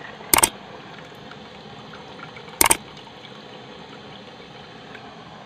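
Gram-flour batter (besan whisked in water) poured from a jug into a pot of fried masala, a steady liquid pouring noise. Two sharp knocks cut through it, one about half a second in and one between two and three seconds in.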